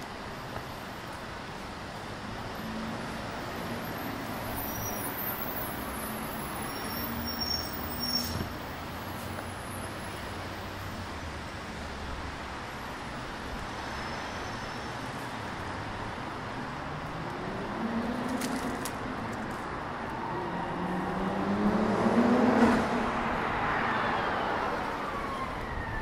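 Steady traffic noise on a wide city road. A vehicle engine accelerates past with its pitch rising, twice in the last third, and is loudest a few seconds before the end.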